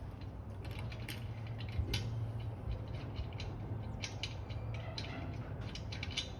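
Irregular metallic clicks and ratcheting from hand tools or the jack at work on a tire change, over a steady low hum.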